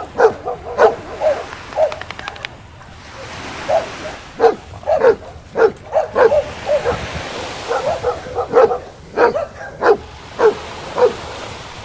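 A dog barking repeatedly in short, fairly high-pitched yaps, about eighteen of them at an uneven pace, some coming in quick pairs.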